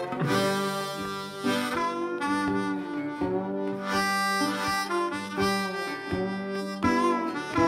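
Background music led by a harmonica playing a melody of held and bent notes.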